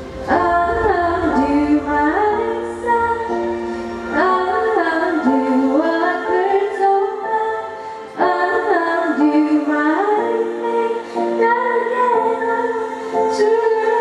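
A teenage girl singing a solo song into a microphone over a recorded instrumental accompaniment, her phrases starting about every four seconds.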